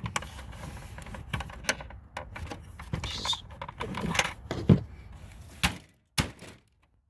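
Hard plastic and metal parts of an inkjet printer clicking, rattling and knocking as it is pulled apart by hand, with a few sharper knocks in the second half, then the sound cuts off suddenly.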